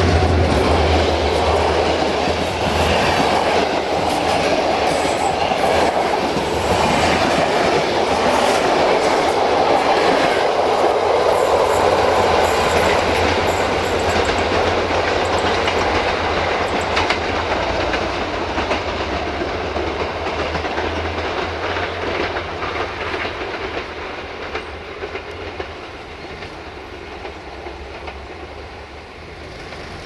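Diesel-hauled passenger train running past close by, carriage wheels clattering over the rail joints, then fading away from about halfway through as the train recedes.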